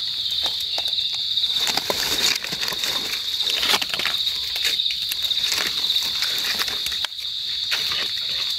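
A steady high-pitched insect chorus, with dry leaf litter crackling and rustling as a hand picks through it and feet move over the forest floor.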